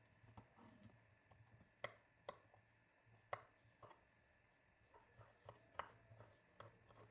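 Kitchen knife slicing a cucumber on a wooden cutting board: faint, irregular taps each time the blade meets the board.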